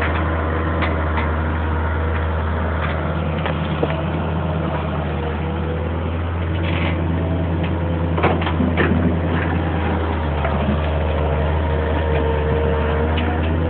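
Wheeled hydraulic excavator's diesel engine running steadily with a deep drone, a higher tone wavering over it, and a few sharp knocks about eight seconds in.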